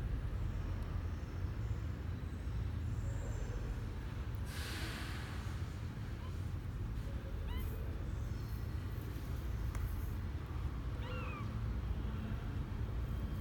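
Faint, high, short mews of a 12-day-old kitten, twice in the second half, over a steady low rumble. A brief rustle comes about a third of the way in.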